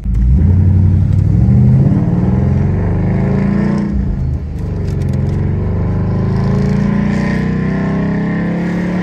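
2016 Ford Mustang GT's 5.0-litre V8 engine revving loudly, its note climbing and falling, with a brief drop in level a little after four seconds.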